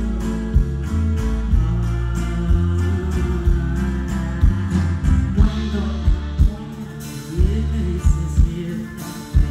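Live band music: acoustic guitars strummed over bass and a drum kit keeping a steady beat, with a woman singing.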